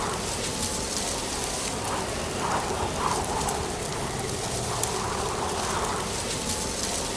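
Strong wind blowing through trees, with dry autumn leaves rustling in a steady hiss broken by scattered sharp ticks.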